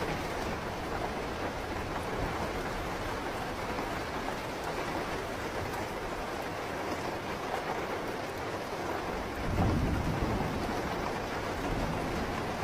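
Steady rain falling, with a low rumble of thunder swelling up about nine and a half seconds in.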